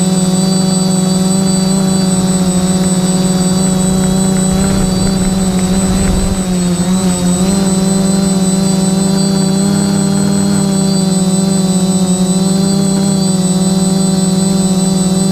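The brushless motors and propellers of an SK450 quadcopter whine steadily in flight, heard from a camera mounted on the frame. About five seconds in there is a short stretch of low rumble and the pitch wavers briefly before it steadies again.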